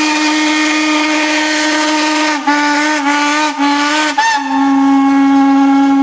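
Steam-train whistle sound: one long, steady whistle blast over a hiss of steam, with a few brief breaks around the middle.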